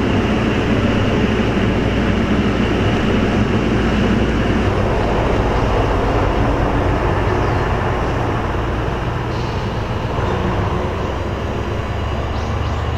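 Large tour coach's engine running as the bus pulls away and drives off, a steady low engine sound with road noise that eases off a little in the second half.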